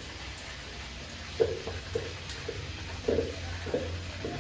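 Fish deep-frying in hot oil, a steady sizzle, with a few short knocks and clatters of a utensil.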